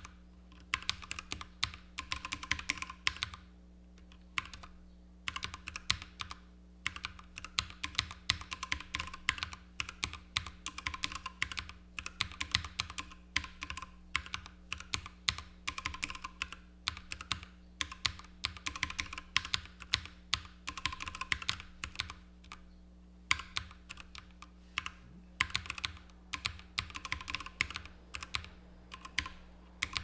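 Typing on a Keychron K6 (non-backlit) mechanical keyboard with Keychron Mechanical Red linear switches: quick runs of keystroke clacks, broken by a few brief pauses.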